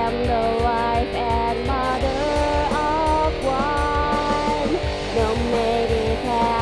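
Background music: a song with guitar over a steady beat.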